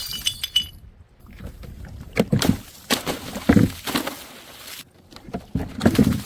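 Glass shattering with a brief ringing of shards at the start, followed by a series of sharp knocks and cracks of things being smashed or crushed.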